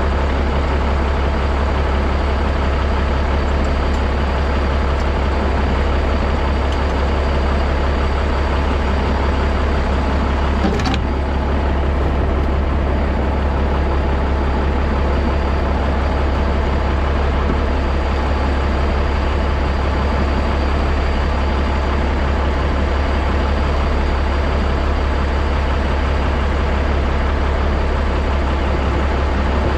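Semi truck's diesel engine running steadily with a deep, even drone, and a single click about eleven seconds in.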